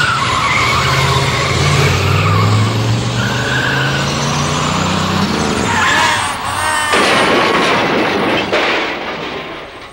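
Car engine running, rising in pitch about five seconds in, followed by tyres squealing and a noisy skid that fades near the end.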